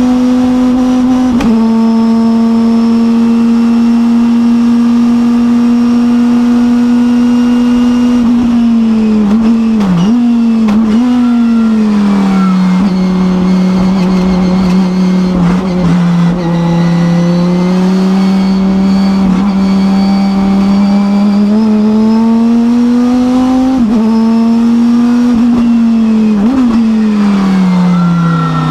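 Chrysler Viper GTS-R's V10 race engine heard from inside the cockpit on a flying lap. It is held at high revs for several seconds, then comes off the throttle with quick blipped downshifts as the pitch drops, pulls steadily up through the revs again, and near the end blips down through the gears once more.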